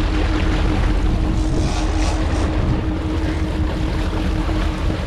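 A sport-fishing boat's engine running, with water rushing and splashing beside the hull and wind buffeting the microphone. A steady hum holds until just before the end.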